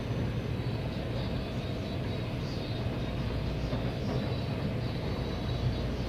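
Taipei Metro 381-type train running at speed between stations, heard from inside the passenger car: a steady rumble of wheels on the track with faint high tones above it.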